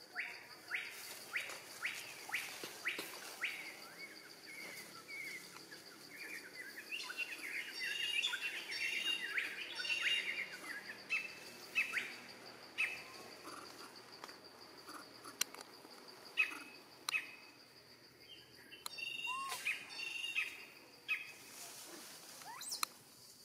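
Birds chirping and calling, a run of short sharp calls that is busiest in the middle, over a steady high-pitched insect drone.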